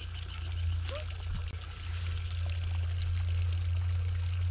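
A steady low rumble under a faint hiss of running or pouring water.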